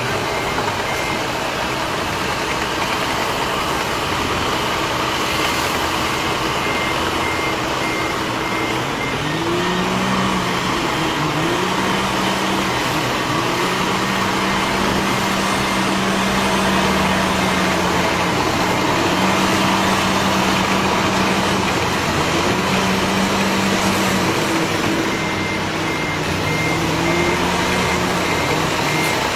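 Engine of heavy construction machinery running, its pitch rising and falling several times as it works under load. A reversing alarm beeps steadily at the start and again near the end.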